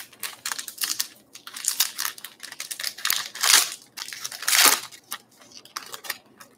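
Plastic trading-card pack wrapper crinkling and rustling as it is handled and opened, in a run of irregular short rustles, the loudest about three and a half and four and a half seconds in.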